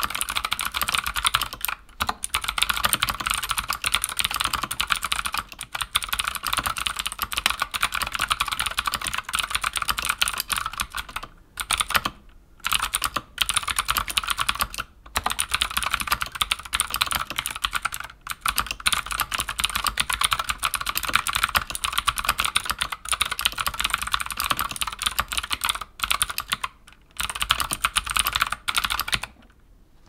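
Fast typing on a Keychron K14 mechanical keyboard with clicky Keychron Mechanical Blue switches: a dense stream of key clicks with a few short pauses, stopping about a second before the end.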